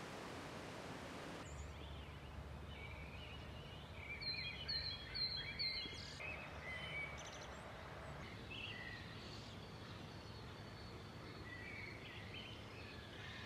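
Small birds calling at dawn: a run of four quick, high repeated notes about four seconds in, then scattered chirps and short phrases. For the first second and a half, a steady rushing hiss that cuts off abruptly.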